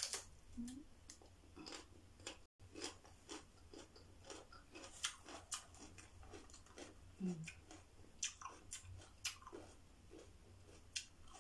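A person biting and chewing raw green bell pepper: a run of crisp, irregular crunches, with a short low hum from the eater twice.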